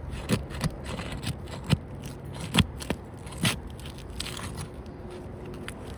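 An asphalt roof shingle being pried up off its sealant strip: scraping and crackling as the sealed bond breaks, with several sharp snaps, the loudest about two and a half seconds in.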